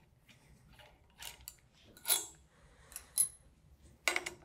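About six light metallic clinks and taps as a T-handle Allen wrench is fitted to and turned on the body retaining bolts of a Waukesha Universal 2 positive-displacement pump, loosening them. One clink, about three seconds in, rings briefly.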